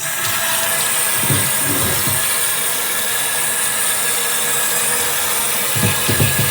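Water running hard from a tap, rinsing wheel cleaner off a metal part: a steady, loud hiss that comes on suddenly.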